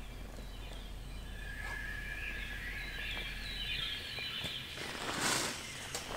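Forest ambience with birds calling and a steady high thin tone. A short burst of rustling noise comes about five seconds in.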